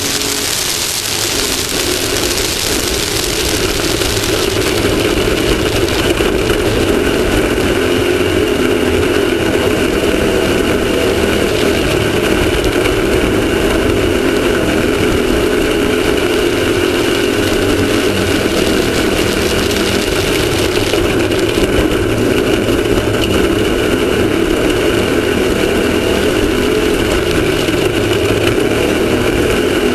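Off-road race vehicle's engine running hard at a steady speed, heard close from a camera mounted on the vehicle, over a constant rush of wind and terrain noise; the hiss is stronger in the first few seconds.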